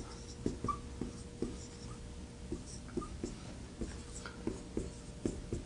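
Handwriting strokes as an equation is written out: a run of short, irregular taps and scratches, a few each second.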